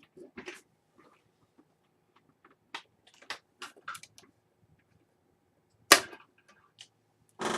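Scattered small clicks and taps of computer parts and a SATA cable being handled and plugged in, with one sharp knock about six seconds in and a short burst of clatter near the end.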